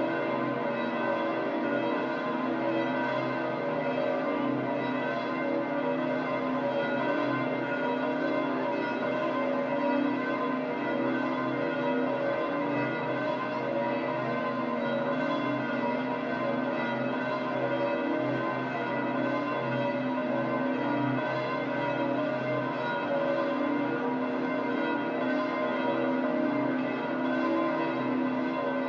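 Bells of St. Peter's Basilica pealing, several large bells ringing together in one dense, unbroken wash of overlapping tones.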